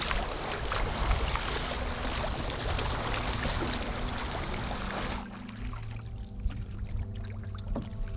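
Choppy lake water sloshing and lapping right at the microphone, with many small splashes. About five seconds in, the sound cuts suddenly to quieter water, with steady low tones underneath.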